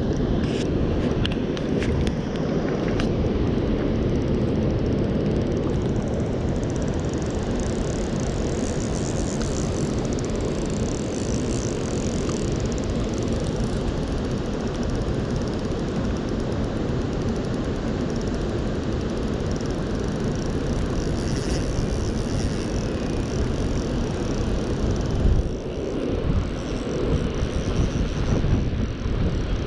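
Steady rush of the Arno's water pouring over a river weir, with a few louder knocks near the end.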